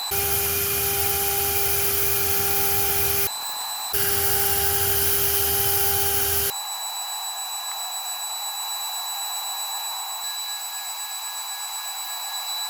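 Homemade five-axis CNC machine's spindle running with a steady whine and hiss while engraving. The sound switches abruptly a few times between a fuller, lower hum, for the first three seconds and again a little later, and a thinner, higher whine for the rest.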